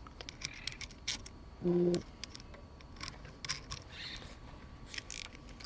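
Scattered light metallic clicks and ticks of small bike hardware (nuts, washers) and hand tools being handled during disassembly.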